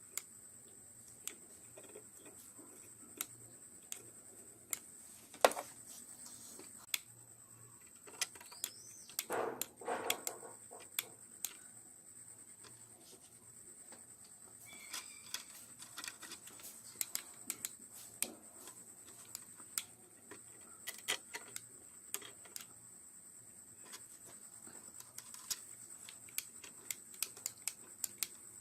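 Scattered light clicks and taps of small parts being handled and fitted, with a sharp click about five seconds in and a rustling scrape around ten seconds in, over a faint steady high whine.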